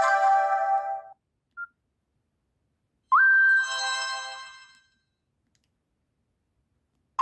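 Two short Nokia C5-00 ringtones with silence between them. The first chime ends about a second in; the second starts about three seconds in with a quick upward slide in pitch and fades out over about a second and a half.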